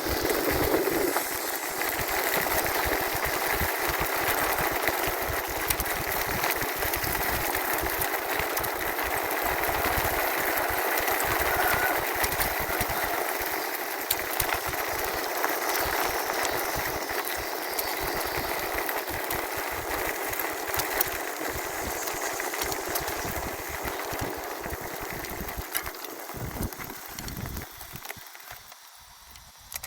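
Wind and tyre rush with constant rattling and vibration from a camera mounted on a 48 V 1500 W rear-hub e-bike riding at speed, dying down over the last few seconds as it slows.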